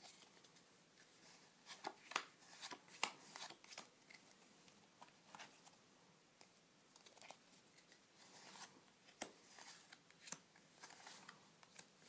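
Playing cards being handled: quick snaps, flicks and light slaps of card stock as cards are fanned, picked up and laid down in piles. The sounds come in two flurries, about two seconds in and again around nine seconds in.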